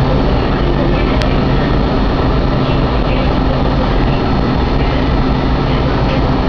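Loud, steady mechanical hum with a low drone that stays unchanged throughout.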